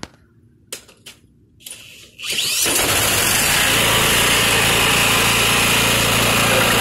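A few light clicks, then a cordless drill spins over a Troy-Bilt riding mower's engine, which catches about two seconds in and keeps running steadily. The drill is standing in for an electric starter that has failed.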